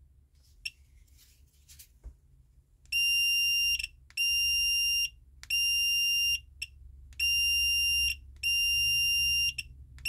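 Handheld remote-control tester beeping as the repaired Land Rover key fob's buttons are pressed: a shrill steady beep about a second long, five times from about three seconds in, with short uneven gaps. Each beep is the tester picking up the fob's transmission, a sign the re-soldered button works.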